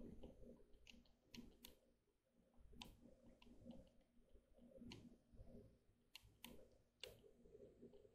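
Near silence: faint low room hum with several sharp, irregularly spaced small clicks.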